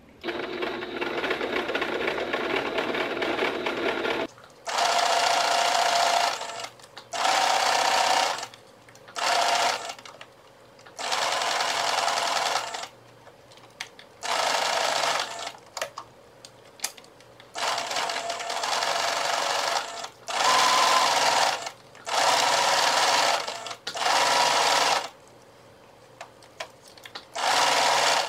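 Electric sewing machine stitching. It runs steadily for about four seconds, then stops and starts in about ten short runs of one to two seconds each while the fabric is guided along the seam.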